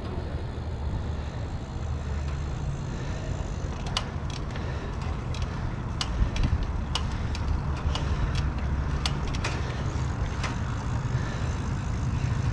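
Wind buffeting an action camera's microphone as a rental bicycle rolls along, with scattered sharp clicks and rattles from the bike that come more often from about four seconds in.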